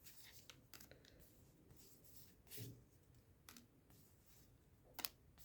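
Faint soft clicks and rustles of trading cards being slid and flipped through in the hands, with a sharper click about five seconds in.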